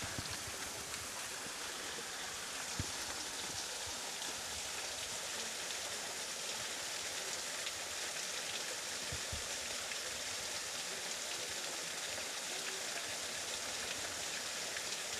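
Thin streams of water falling down a mossy rock face and splashing below: a steady, even hiss of running water.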